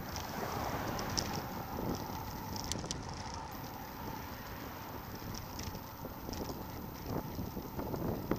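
Wind rushing over the microphone of a bicycle-mounted camera, with road noise from the bike rolling along. A couple of sharp clicks come about three seconds in, and more knocks from bumps come near the end.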